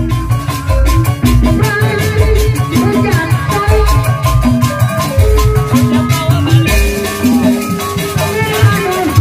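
Live Sundanese jaipong (bajidoran) music: kendang drums beat a driving rhythm of strong low strokes under a steady, winding melody.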